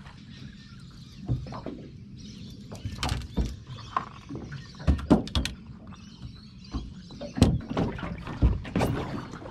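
Irregular knocks, thunks and clatter on an aluminium tinny as a stand-up paddleboard and gear are handled and pulled aboard, the loudest knocks about five and seven and a half seconds in.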